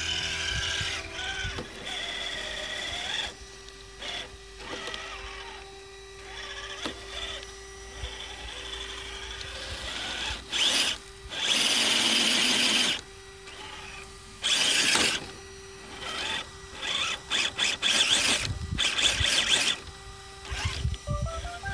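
Traxxas TRX-4 Sport RC crawler's brushed electric motor and geared drivetrain whining in short throttle bursts as it climbs a steep rock face under load. The loudest bursts come a little past halfway and in a quick run of pulses near the end.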